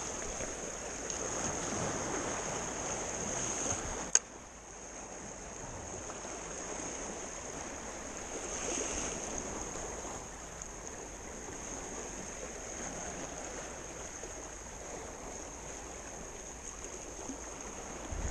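Small sea waves washing and lapping around rocks at the water's edge, a steady wash. A single sharp click about four seconds in.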